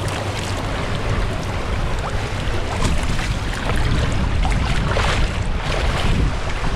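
Water rushing and splashing on a water slide, with wind buffeting the microphone.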